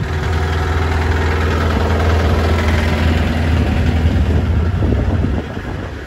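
Small construction-plant engine idling steadily with a strong low hum, dropping away shortly before the end.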